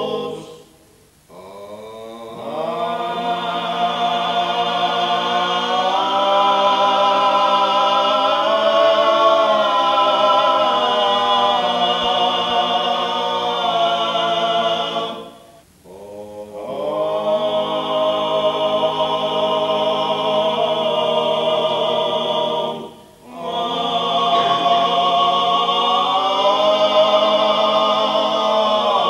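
Men's voices singing unaccompanied in close harmony, in long held phrases with short breaks for breath about a second in, halfway through and near the end.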